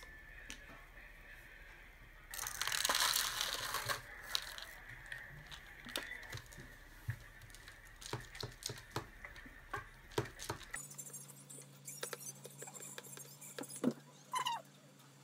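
Foil lid of a plastic dessert cup crinkling as it is folded and crumpled, loudest for a couple of seconds near the start, followed by many light clicks and scrapes of a spoon in the plastic cup.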